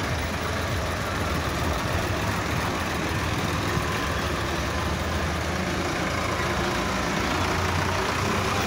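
A line of diesel farm tractors driving past one after another, their engines running steadily.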